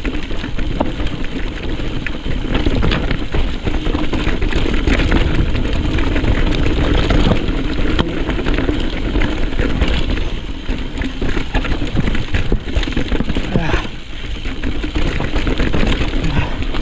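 Mountain bike ridden fast over a rough, rocky trail: constant clatter and rattling of the bike and its tyres hitting rock, over a steady rumble of wind on the microphone.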